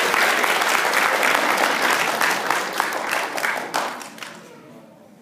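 Audience applauding, many hands clapping, then dying away about four seconds in.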